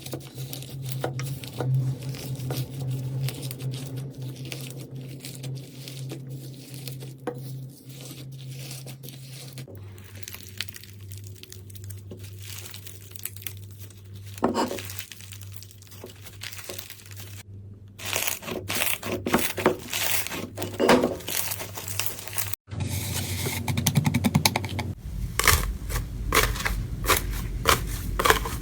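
Slime being squeezed, stretched and pressed by hand, giving crackling, crinkly popping clicks over a low hum. The clips change several times, and the clicking is densest and loudest near the end.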